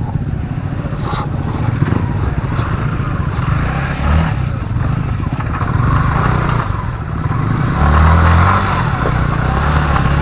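Royal Enfield Himalayan's single-cylinder engine running at low speed, pulsing steadily, with the throttle opened briefly about four seconds in and more strongly around eight seconds.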